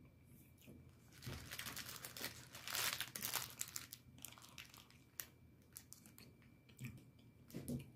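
Food packaging crinkling and rustling as it is handled, with a dense run of crackles from about one to four seconds in and scattered crackles after.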